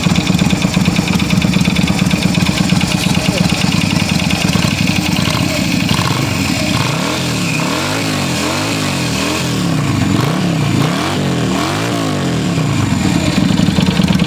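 Yamaha Virago 250 V-twin engine idling, then revved up and down several times in quick succession, about a second apart, before settling back to idle. The owner suspects the noise it has developed comes from a piston, and its original exhaust is slightly cracked.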